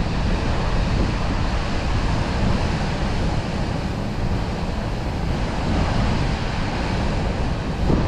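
Steady rushing noise of wind buffeting the microphone over fast-flowing water, with no distinct events.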